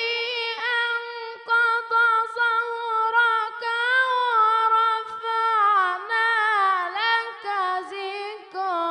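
A boy's high, unbroken voice reciting the Quran in the melodic mujawwad style. He holds one long ornamented line, with trills and small rises and falls in pitch and a few short breaks.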